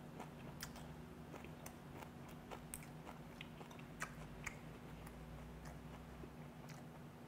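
Close-miked mouth chewing: irregular wet clicks and smacks as a mouthful of fermented skate wrapped with mustard-leaf kimchi and boiled pork is chewed with the mouth closed. A faint steady low hum runs underneath.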